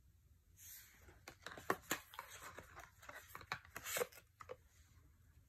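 Tarot cards being handled as the next cards are drawn out: a soft papery rustle about half a second in, then a run of quick, irregular clicks and taps of card stock sliding against card for about four seconds.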